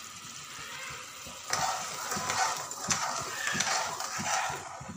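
Slotted metal spoon stirring sugar syrup as it cooks in a metal kadhai, scraping the pan and stirring the liquid, over the faint sizzle of the syrup. The stirring gets louder and busier about a second and a half in.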